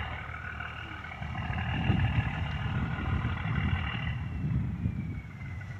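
Boat engine running over open water, a steady whine over an uneven low rumble; the whine slides slowly down in pitch near the end.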